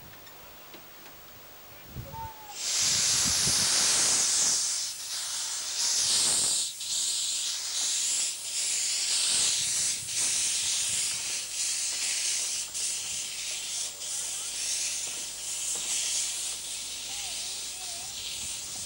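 Miniature steam locomotive hissing loudly with escaping steam, starting suddenly about two and a half seconds in and pulsing unevenly as the train gets under way.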